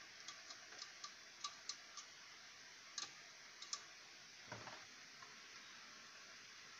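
Faint, irregular small clicks of metal and plastic as the deflection yoke on a CRT television's picture-tube neck is worked loose, about a dozen over the first four seconds, then a soft knock.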